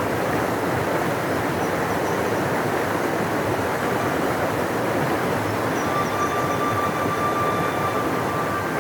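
A large river rushing in a steady, even roar. A faint thin whistle-like tone joins about six seconds in.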